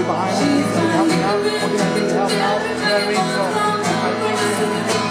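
Music with a singing voice, continuing steadily throughout.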